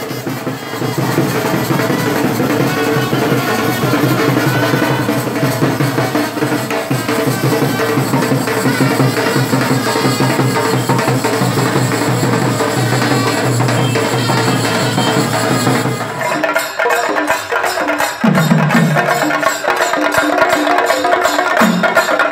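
Procession music: drumming with held instrument notes. About two-thirds of the way through it changes to sharp, rapid stick strokes on chenda drums.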